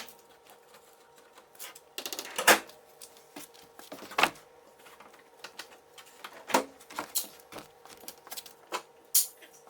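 Irregular clicks, taps and knocks of hand tools and plastic parts while the windshield wiper arms are taken off; the loudest knocks come about two and a half and four seconds in. A faint steady hum runs underneath.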